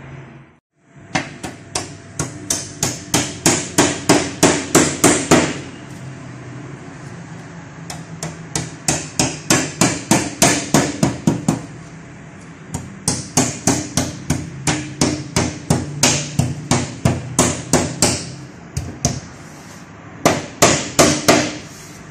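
Small hammer tapping along the wooden frame strip of a door while a mirror glass pane is fitted: runs of sharp, quick taps, about three a second, in four bursts with short pauses between.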